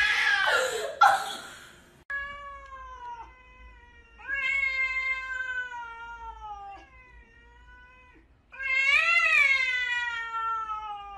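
Cats yowling in a hostile standoff: four long, wavering, drawn-out yowls, the last and loudest starting about eight seconds in, rising and then slowly sinking in pitch. Before them, in the first two seconds, a brief loud voice and a sharp knock.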